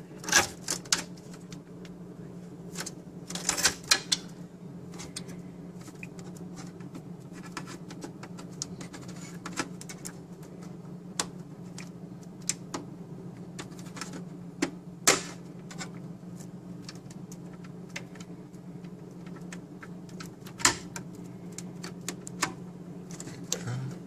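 Irregular clicks and light knocks of cables and plastic parts being handled inside an HP ProLiant MicroServer N54L chassis as the wires are pulled out of the way. The loudest click comes about fifteen seconds in. A steady low hum runs underneath.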